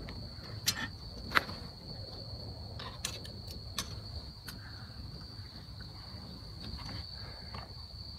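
Steady high insect trill, likely a cricket, with a few sharp knocks and clicks in the first four seconds as camping gear is handled on a folding table.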